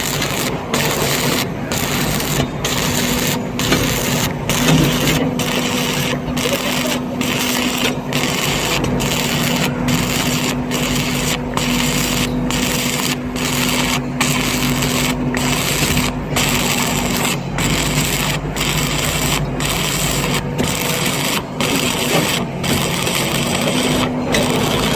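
Welding arc crackling and sizzling steadily, with a steady low hum underneath for much of the time.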